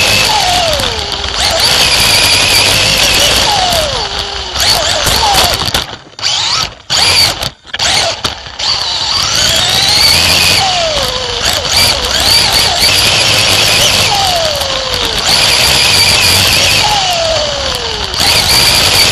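Onboard sound of a race car at speed on an oval: the engine note falls in a downward sweep every few seconds and climbs again, over loud wind and engine noise on the in-car camera's microphone. The sound cuts out briefly a few times near the middle.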